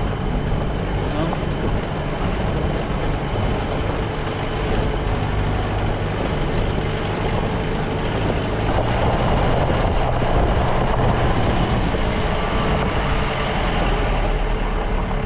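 Jeep engine running steadily while driving off-road, with continuous road and cabin noise.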